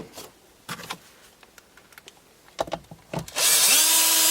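A few light clicks of parts being handled, then a power drill spins up and drives a screw for about a second and a half near the end, its motor pitch rising briefly and then holding steady.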